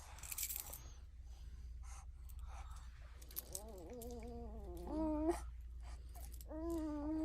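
A few light clicks and knocks, then two drawn-out wavering wailing cries: the first rises and falls about halfway through, the second starts near the end and holds steady.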